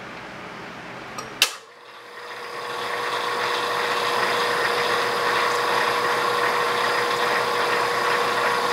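16-inch South Bend metal lathe switched on with a sharp clunk about a second and a half in. Its motor and gear train then spin up over about two seconds and run steadily with a whine. The half-nuts stay engaged, so the lead screw feeds a boring bar into the bore for a shallow first internal threading pass.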